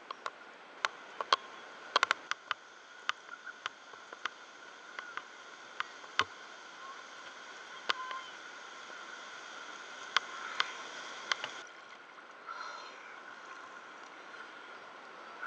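Sharp, irregular clicks and knocks over a steady hiss: handling noise of a diver's action camera as they walk across the beach carrying scuba gear. About twelve seconds in the hiss changes and a short rushing noise follows as the camera goes into the surf.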